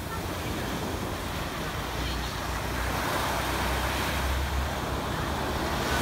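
Small sea waves breaking and washing up a sand beach: a steady rushing wash that swells about halfway through and again near the end, with a low rumble underneath.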